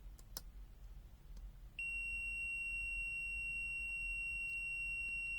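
UNI-T UT121A multimeter's beeper starting a steady, high continuous beep a couple of seconds in, the meter's continuity signal for a low resistance across the test probes. A faint click comes just before it.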